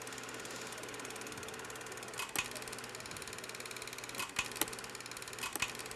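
Film projector running with a steady, rapid mechanical clatter. Sharper clicks come in pairs about every two seconds.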